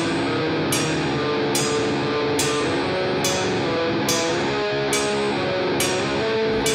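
Rock music with held guitar chords and a steady drum beat, one hit a little faster than once a second.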